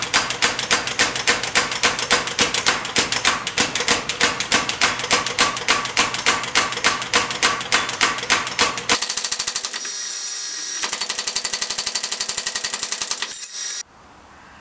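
Power hammer striking a hand-held top tool on a red-hot steel bar, about four or five blows a second. About nine seconds in the blows turn faster and lighter, then stop abruptly about a second before the end.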